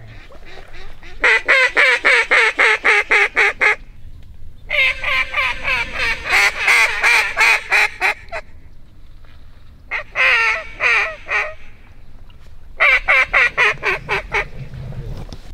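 A duck call blown in quick runs of quacks, four bursts of a few seconds each with short pauses between, calling to waterfowl flying overhead.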